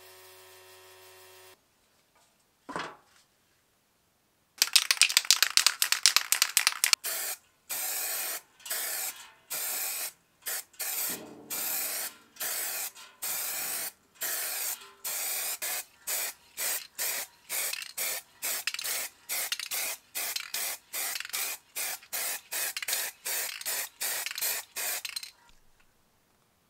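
Aerosol spray paint can spraying in short hissing bursts, about two a second, the first couple of seconds denser and louder. A faint steady hum is heard briefly at the start.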